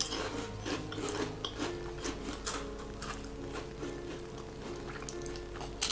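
Light crunching and chewing of a fried fish cracker, scattered faint crackles, over soft background music with a simple melody.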